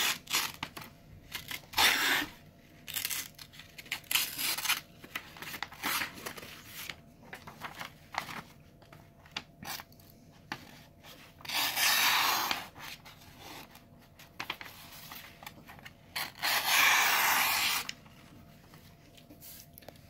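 Main blade of a Boker Plus multi-tool slicing through sheets of paper: a run of short papery swipes, with two longer, louder slices a little before halfway and about three-quarters through. The blade cuts cleanly, sharp straight out of the box.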